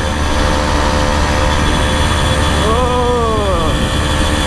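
49cc Motoped Survival Bike engine running steadily at a cruise of about 30 miles an hour, with wind rushing over the microphone. Around the middle, a short voice-like sound rises and then falls in pitch.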